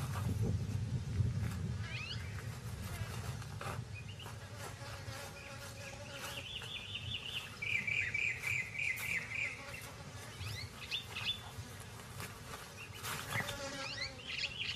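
Nile monitor lizard digging into a crocodile nest, its claws scratching and scraping in dry soil and grass with scattered sharp scratches. High chirping trills sound in the background about halfway through and again near the end.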